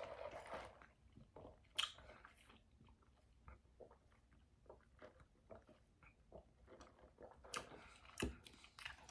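Faint, close-miked chewing: soft wet mouth clicks and smacks scattered throughout, with a louder smack about two seconds in and a few more near the end.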